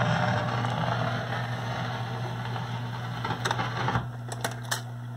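Surface hiss of a 78 rpm shellac record in the run-out groove after the song ends, over a steady low hum from the tube console. About four seconds in, the hiss cuts off and the Voice of Music record changer clicks several times as the tonearm lifts and swings off the record.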